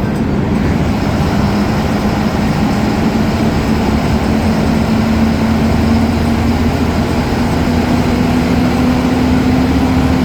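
Ashok Leyland BS4 bus diesel engine running under way, its drone rising slowly in pitch as it gathers speed, with a faint high turbo whistle above it.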